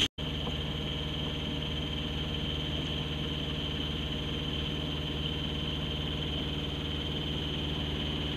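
Boat engine running steadily, a constant hum that starts after a brief drop-out right at the beginning.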